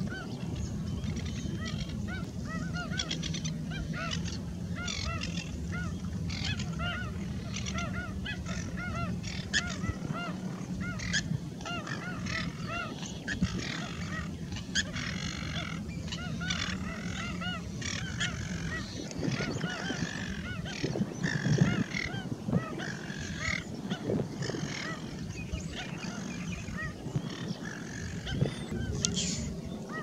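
A flock of waterbirds calling with many short, repeated honking yaps that overlap throughout, over a low steady hum.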